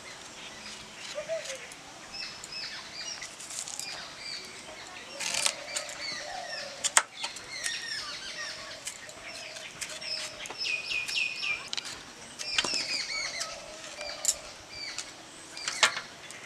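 Birds chirping and calling in short, repeated notes, with a quick run of falling notes about two-thirds of the way through. Short scrapes and a sharp click come from a knife peeling raw green bananas.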